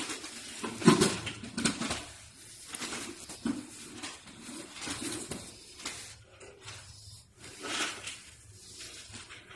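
Close-up mouth-eating noises: chewing and lip smacking right at a phone's microphone, in irregular bursts, with a loud jolt about a second in.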